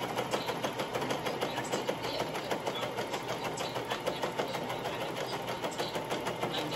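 Brother electric sewing machine running steadily, its needle stitching through thick tapestry-blanket fabric in a fast, even rattle of stitches.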